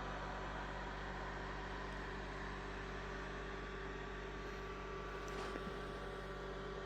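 Steady machine hum with an even fan-like hiss and several constant tones, unchanging throughout.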